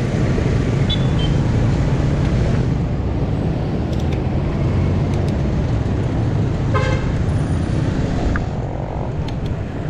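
Steady wind rush and road traffic noise on a moving bicycle's action-camera microphone, with a short vehicle horn toot about seven seconds in.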